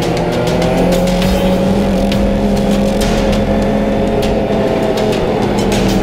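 Snowmobile engine running steadily at riding speed, its pitch rising and falling slightly, with wind and track noise.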